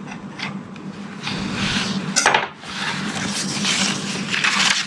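Paper booklets and cardboard packaging being handled: rustling and sliding with a few light knocks and clicks, one sharper click about two seconds in.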